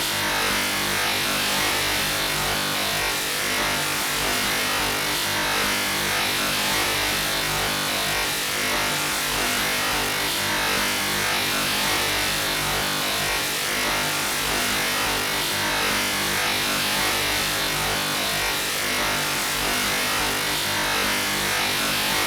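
Atari 8-bit POKEY sound chip putting out a steady, unchanging hiss of noise with a buzzing undertone, the generated audio of a 64-byte intro.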